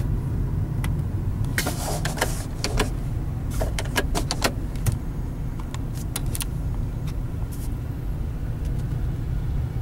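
Low, steady vehicle rumble heard from inside a car, with a run of sharp clicks and rattles over the first several seconds.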